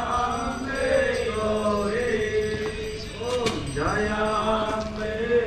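A man chanting a Hindu devotional hymn in long held notes, with music behind him.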